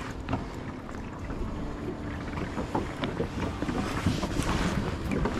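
Wind buffeting the microphone on an open boat, with scattered small knocks and rattles of handling.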